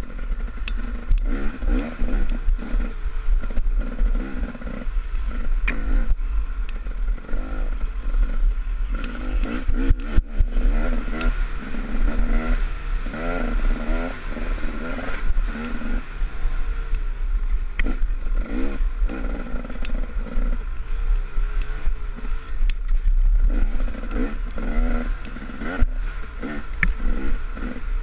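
Off-road motorcycle engine revving up and down as the bike rides a wooded trail, with rattles and a few sharp knocks from the bike over rough ground.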